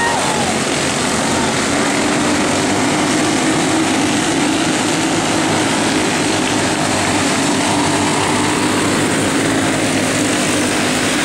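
Box Stock winged karts racing on a dirt oval: the steady buzz of several small kart engines at speed under a constant rushing hiss.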